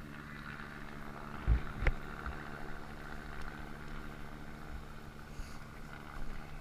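A boat's engine running steadily at a low, even hum, with two short low thumps about a second and a half and two seconds in.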